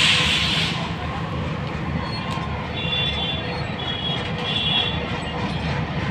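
Steady low rumble of an approaching diesel train, with a short hiss right at the start.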